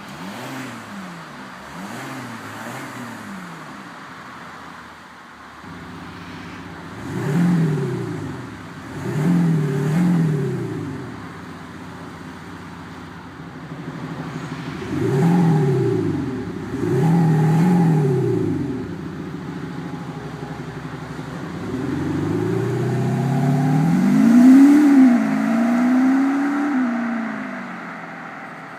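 Audi A6 3.0 TDI V6 diesel, fitted with a Maxhaust Soundbooster active-sound system, revved in a series of blips. The pitch rises and falls each time: two small blips, then four stronger ones, then a longer, higher rev near the end.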